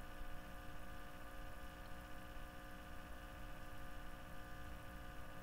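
Steady low background hum and hiss with several constant tones, unchanging throughout and with no distinct events.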